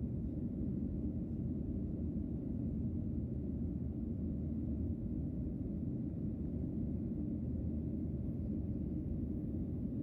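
Steady low rumble of a jet airliner in flight, heard from inside the cabin: engine and airflow noise with no change in level.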